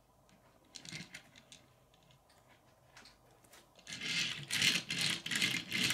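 Small die-cast toy car, a Majorette Audi R8, pushed across a wooden floor: a few light clicks, then from about four seconds in its small wheels roll and rattle over the boards in a rapid clatter.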